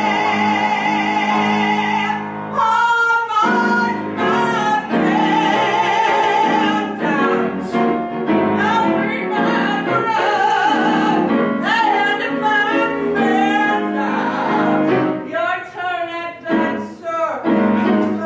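A woman belting a Broadway show tune with live piano accompaniment: a long held note with vibrato ends about two seconds in, followed by shorter sung phrases over piano chords.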